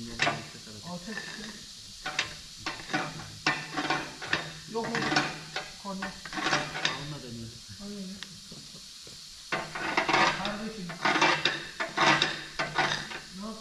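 Metal tools and parts clattering and scraping in irregular knocks, over a steady low hum.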